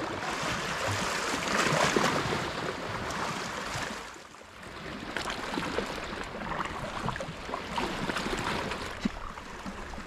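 Sea water lapping and splashing at the shore, a steady wash of noise with small scattered clicks, dropping briefly quieter about four seconds in.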